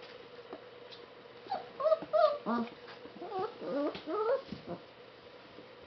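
Shiloh Shepherd puppies whining and yipping in play, a string of short high calls that bend up and down, lasting about three seconds from around a second and a half in.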